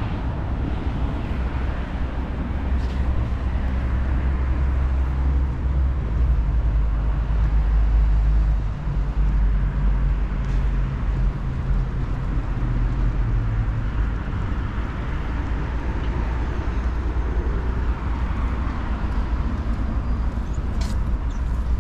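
Road traffic noise, with a heavy vehicle's engine rumbling past; the rumble is loudest from about four to fourteen seconds in.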